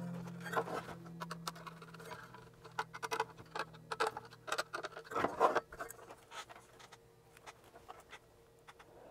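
Scratching, clicking and tapping of hands working on a sheet-metal fan bracket and small rubber isolation grommets. The handling noise is busiest around five seconds in, then thins to occasional light clicks.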